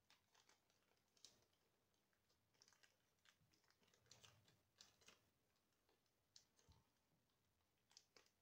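Very faint, irregular small clicks and light rustling as a plastic smartwatch and its silicone strap are handled and turned over in the hands.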